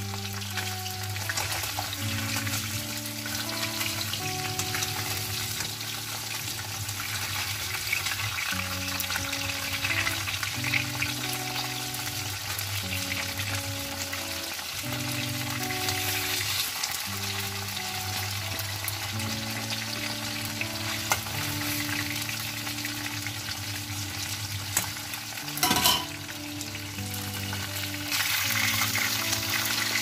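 Fish pieces sizzling steadily in hot oil in a wok while a spatula turns them, with a short clatter of utensil on pan near the end. Soft background music with slow held notes plays underneath.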